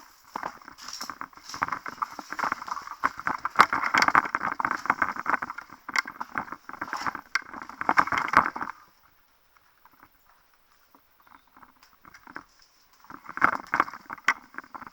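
Quick irregular footsteps with clothing and gear rustling, as a player moves on foot. They stop for a few seconds past the middle, then start again near the end.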